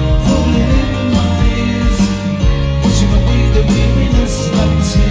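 Live band playing amplified music through a concert PA, with drums, bass and electric guitars.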